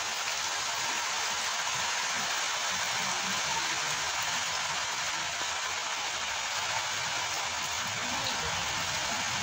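Steady rain falling on floodwater, an even hiss with no let-up.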